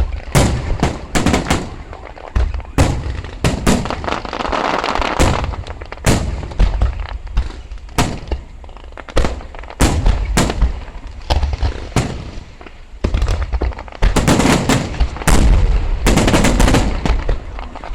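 Fireworks going off in a show: many sharp bangs one after another, some in quick volleys, with denser stretches about four seconds in and near the end.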